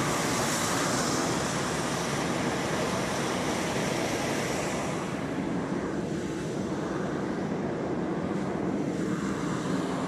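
Hot air balloon's propane burner firing in a long, steady blast, a continuous roaring hiss that heats the envelope as the balloon climbs.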